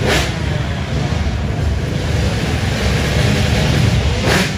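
Loud, steady rumbling rush of wind buffeting the microphone over motocross bike engine noise, with two short sharp bursts, one at the start and one near the end.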